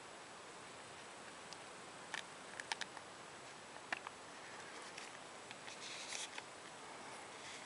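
Cellophane wrapper of a vintage baseball card cello pack crinkling faintly under gloved fingers, with a few small clicks and taps from the handling and a short burst of crinkling near the end.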